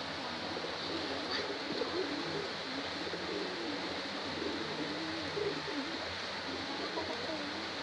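Domestic pigeons cooing continuously, with several wavering coos overlapping one another.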